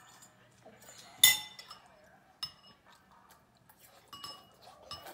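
Spoons clinking against bowls during a meal: one loud, ringing clink about a second in, then a few fainter taps.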